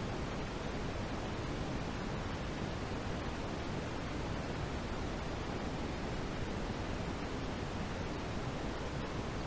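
Steady synthetic noise, an even, unbroken hiss heavier in the low end than the highs, like pink noise, played as a sleep aid.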